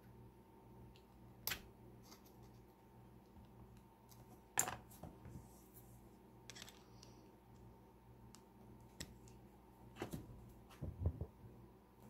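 Small metal tools clicking and tapping against a Mul-T-Lock MT5+ lock cylinder as it is taken apart. The clicks are sparse and sharp, the loudest about four and a half seconds in, with a quick cluster of clicks and low knocks near the end.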